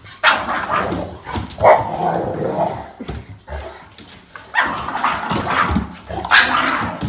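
A dog barking in several loud bursts.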